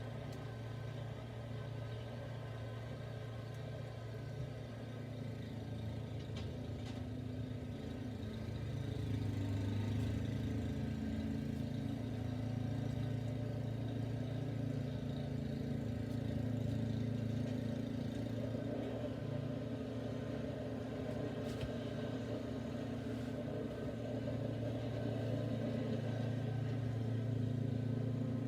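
Snow blower engine running steadily, getting somewhat louder about nine seconds in.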